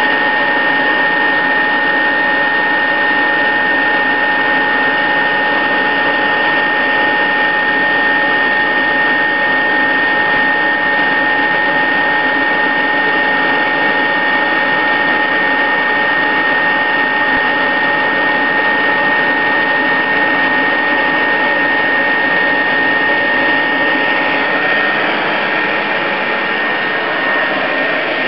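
Tefal ActiFry 1.5 kg air fryer running: its hot-air fan gives a steady whirring hiss with a high, constant whine, which wavers briefly near the end.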